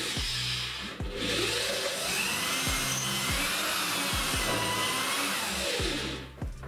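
An electric drill runs from about a second in until near the end, its motor whine wavering as the bit bores into a clamped wooden strip. Background music with a steady beat plays throughout.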